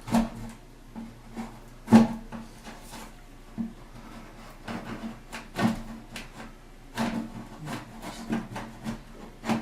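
Irregular knocks and clacks of a metal door latch being worked into the hole bored in the edge of a wooden door, with one sharp knock about two seconds in the loudest.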